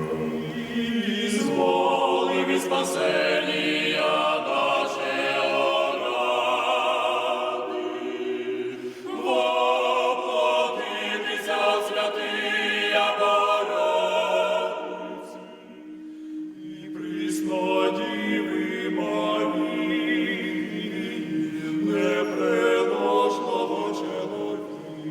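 A choir singing a slow chant of several voices. The singing eases off briefly about two-thirds of the way through, then returns over a long held low note.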